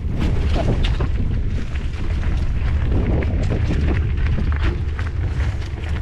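Mountain bike rolling along a dirt trail: wind buffeting the handlebar camera's microphone in a steady low rumble, with tyres crunching over dry leaf litter and frequent small knocks and rattles from the bike over bumps.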